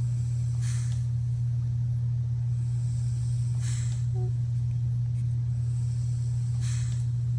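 Home medical breathing machine running: a steady low hum with a short hiss of air about every three seconds.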